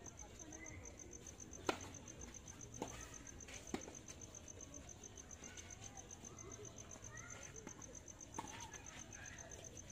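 Tennis ball being struck by rackets and bouncing during a rally: sharp pops, three in the first four seconds and another at about eight and a half seconds. Under them crickets chirp in a steady, high, rapid trill.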